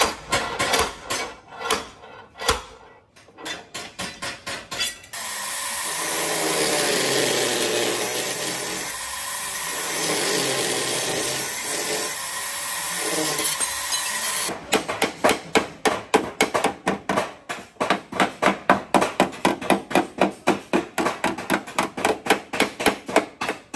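A few seconds of knocks, then an angle grinder grinding the rusted steel rocker panel of a Toyota Premio for about nine seconds, with a steady whine. It stops abruptly and gives way to fast, even hammer blows, about three to four a second, as the sill is beaten straight with a hammer against a bar.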